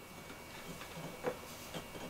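A few faint, light clicks and taps of a cut tile being set against the countertop and backsplash as it is test-fitted.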